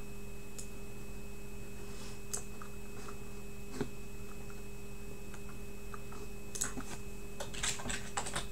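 Sparse light clicks, with a quick run of them near the end, over a steady electrical hum.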